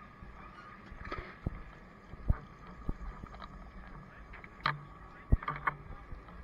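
Fire engine running steadily at the fireground, with scattered sharp knocks and clanks of gear being handled close by. The loudest knock comes a little after five seconds in.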